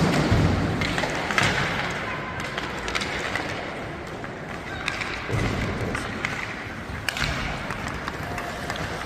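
Ice hockey play on a rink: skate blades scraping across the ice, with sharp clicks of sticks and puck scattered throughout and a dull thud a little past halfway.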